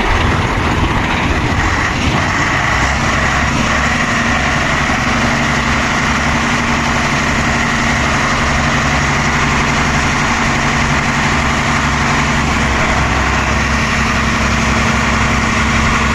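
Heavy truck diesel engine idling steadily.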